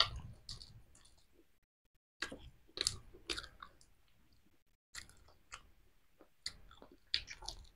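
Scattered soft clicks and crackles of boiled chicken eggshells being peeled by hand, in small clusters, mixed with quiet chewing.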